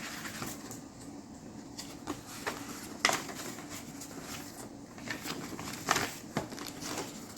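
Handling noise from a plastic model car kit: paper and plastic shuffled about, with a few small clicks and taps, the sharpest about three and six seconds in.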